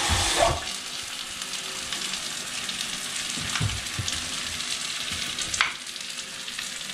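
Chicken curry sizzling as it fries in oil in the pot, a steady crackling hiss, with a few knocks and a scrape of stirring against the pot.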